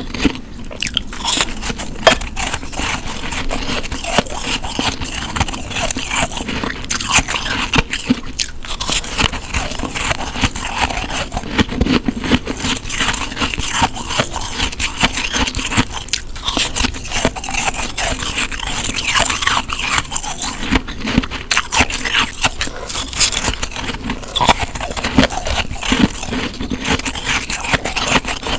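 Close-miked biting and chewing of snow: continuous crisp crunching and scraping of the packed snow between the teeth, with dense crackles and no pauses.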